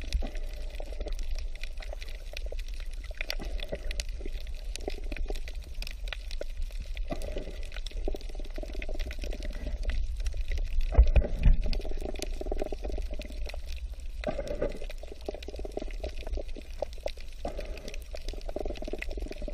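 Muffled underwater water noise: a steady deep rumble with gurgling and sloshing and scattered faint clicks. It surges loudest about eleven seconds in.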